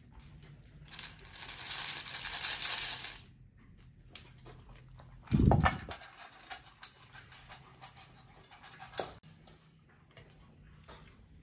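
Dry dog kibble rattling in a bowl for about two seconds, then a loud thump as the bowl is set down on a tile floor. A corgi then eats from it, with quick small clicks of kibble in the bowl.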